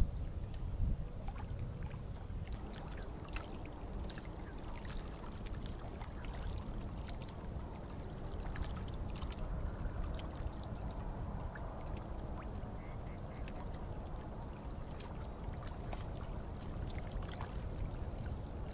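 Lakeshore ambience: wind rumbling on the microphone and small waves lapping against rocks, with many faint scattered clicks and splashes.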